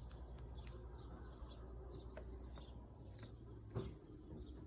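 Hooded crow pecking at food on a tabletop: a few light beak taps, the sharpest one a little before the end, with faint bird chirps behind.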